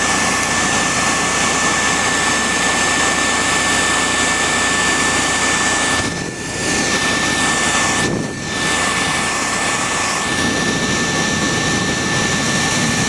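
A machine running steadily with a constant high whine over a broad hiss. It dips briefly twice, about six and eight seconds in.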